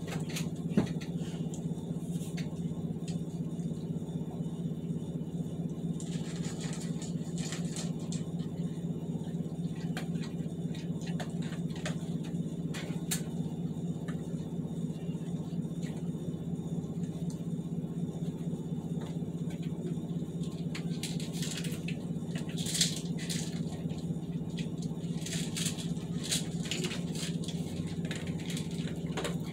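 A steady low hum runs under everything. There is a single sharp knock about a second in, and bursts of rustling and light clatter come around a quarter of the way through and again in the last third.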